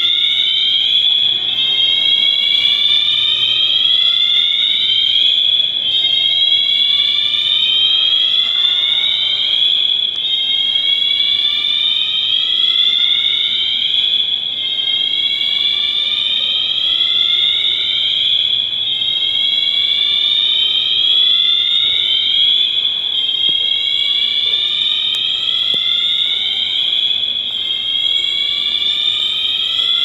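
Shopping-mall fire alarm system sounding: a loud electronic tone sweeping in pitch, repeating over and over without a break.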